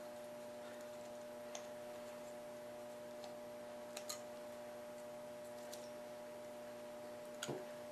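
A few faint, scattered clicks and taps of small metal tools being handled, the loudest a small knock about half a second before the end, over a steady electrical hum.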